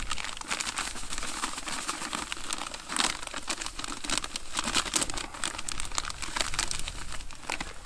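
Plastic bait-liquid pouch crinkling and crackling as it is squeezed and handled over a bucket of groundbait.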